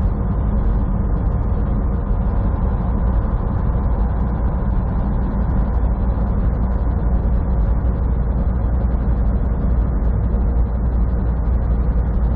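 Semi truck cab at steady highway speed: a constant low drone of the diesel engine and the tyres on the road, with a faint steady hum above it.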